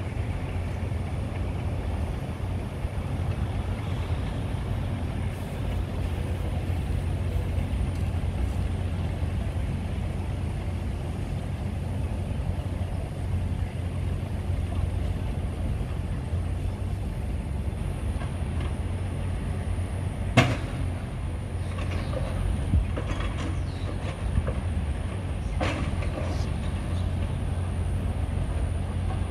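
Steady low-pitched rumble of outdoor background noise, with a few sharp clicks in the last third.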